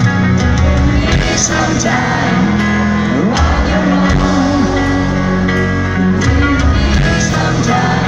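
Live rock band playing a piano ballad, with a sung voice, recorded from the crowd at a concert.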